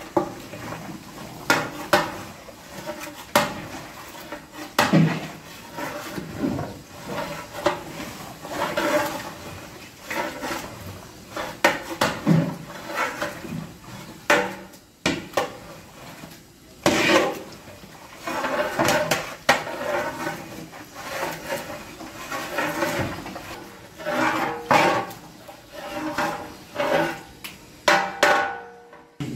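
A long metal ladle stirs thick beef curry in a large aluminium cooking pot: repeated scraping and clanking strokes against the pot's sides, roughly every one to two seconds. After some strokes the pot rings briefly.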